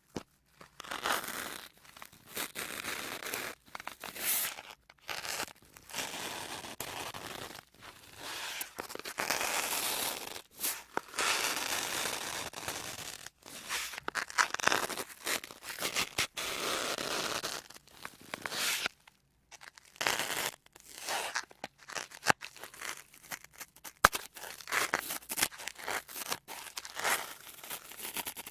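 Sponges worked close to the microphone: an irregular run of scratchy, noisy strokes, some short and some lasting a second or two, with brief pauses between.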